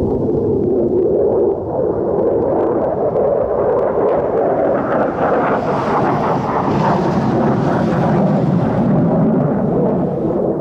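Jet noise from a passing F-15E Strike Eagle's twin engines: a loud, continuous rumble that grows hissier and fuller for a few seconds in the middle of the pass, then eases.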